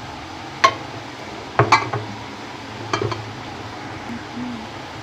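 Sharp metallic clinks and knocks of a utensil against an aluminium pressure cooker while salt is being added to the beans and potatoes. There are four strikes: one about half a second in, two close together near the middle, and one about three seconds in.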